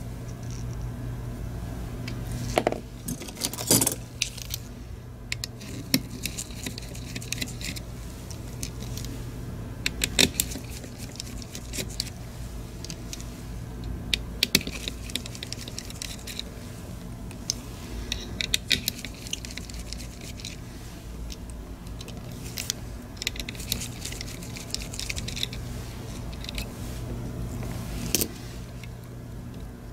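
Small metal tools clicking, tapping and scraping on the plastic shell and circuit board of a Logitech G502 Hero wireless mouse as it is being taken apart, with screws set down on the mat. Irregular sharp clicks come singly and in short clusters, over a steady low hum.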